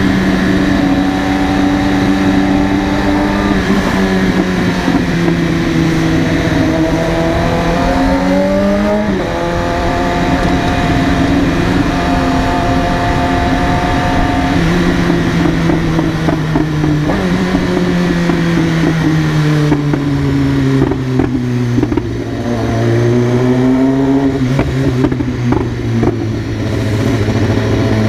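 BMW S1000RR's inline-four engine running under way, mostly at a steady pitch. About nine seconds in it rises briefly and drops suddenly, then sinks to a lower steady note over the last several seconds.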